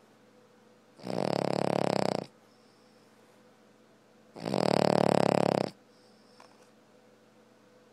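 Dog snoring in its sleep: two snores, each a little over a second long, about three seconds apart.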